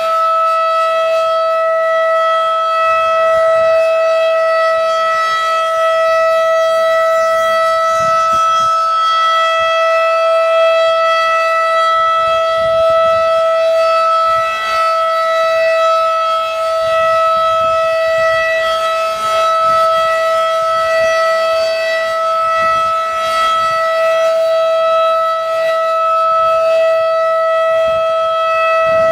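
Federal Signal 2001-DC outdoor warning siren sounding its steady alert tone during a test, holding one constant pitch with no rise or fall.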